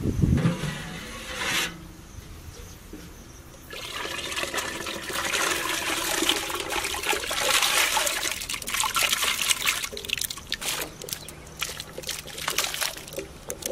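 Water splashing and trickling as cut raw potato sticks for French fries are tipped into a pot of water, loudest through the middle.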